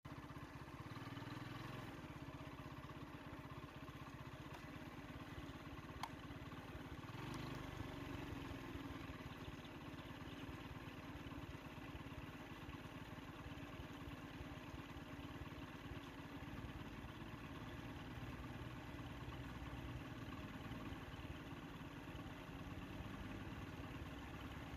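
A vehicle engine idling steadily, a low even engine hum, with a faint click or two a few seconds in.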